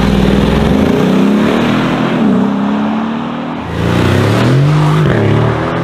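Mercedes G-Class engine accelerating hard, its pitch climbing, dropping at an upshift and climbing again. About three and a half seconds in, the sound changes abruptly to a Mercedes-AMG GLC 63 Coupé's V8 accelerating, rising in pitch with a further shift near the end.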